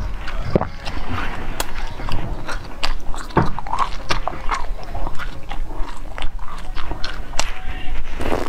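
Biting into and chewing a tall cylinder of firm green jelly: a dense run of sharp, irregular clicks.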